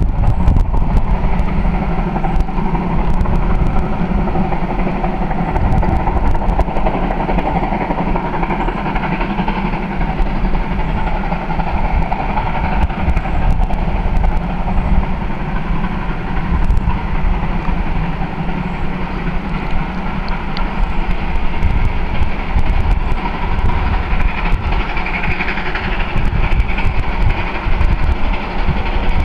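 Shay geared steam locomotive slowly climbing a steep grade, its exhaust and running gear going steadily and loud.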